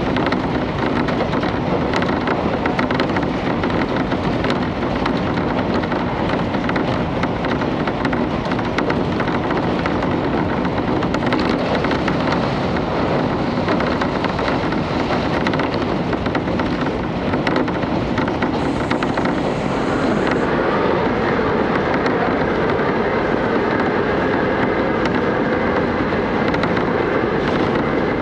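Inside a KiHa 31 diesel railcar under way: the steady rumble of the diesel engine and of wheels on rail, with light rapid clicking running through it. About twenty seconds in, the noise grows a little louder and a steadier hum comes in.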